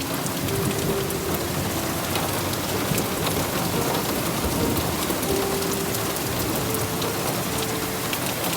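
Heavy rain pouring down steadily, a dense even rush with many individual drops striking close by.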